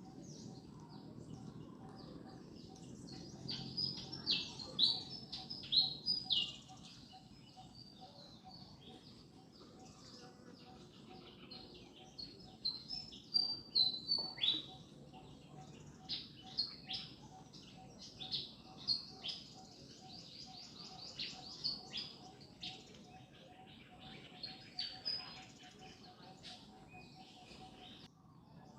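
Small birds chirping in several bursts of quick, high, downward-sweeping notes, over a faint low background rumble and a faint, evenly repeating low note.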